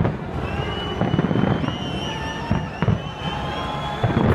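Fireworks display: a dense run of overlapping booms and bangs from aerial shells bursting, with high whistling tones over them.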